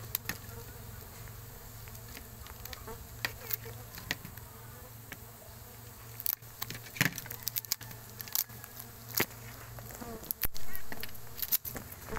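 Stingless bees buzzing steadily around their opened hive, with scattered clicks and scrapes of a metal blade working through the comb, more of them in the second half.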